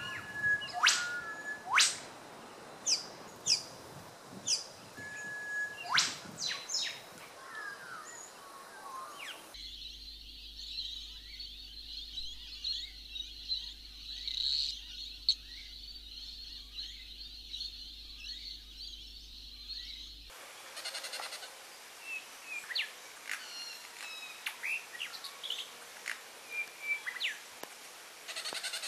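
Recorded birdsong ambience: short, sharp bird chirps and calls. About ten seconds in it switches abruptly to a dense, steady high-pitched chorus over a faint low hum, then switches back to separate chirps about ten seconds later.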